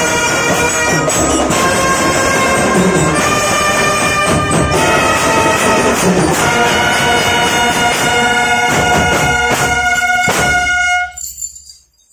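Marching drum band playing: brass horns holding chords over marching snare and bass drum beats. The music stops abruptly on a final hit about eleven seconds in.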